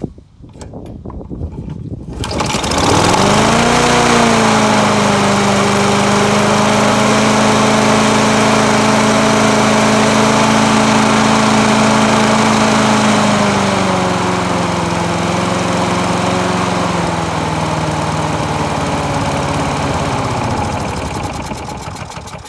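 Briggs & Stratton Quantum single-cylinder four-stroke lawn mower engine, running with its air filter off, starts about two seconds in and settles into a steady run. After about fourteen seconds its speed drops a little, and near the end it slows and fades out.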